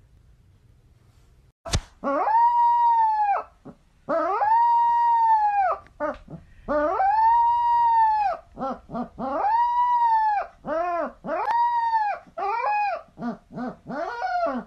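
A puppy howling: three long, even howls of about a second and a half each, then a run of shorter, quicker howls and yips toward the end. A single sharp click comes just before the first howl.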